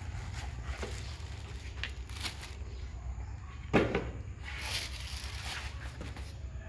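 Packaging being handled on a stainless steel table: scattered light clicks and rustles of cardboard boxes and plastic wrapping, with one sharp thump a little under four seconds in, over a steady low hum.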